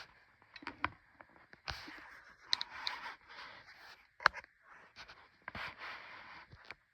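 Large, heavy pages of an oversized hardcover art book being turned by hand: repeated paper sliding and rustling, with a sharp paper snap about four seconds in.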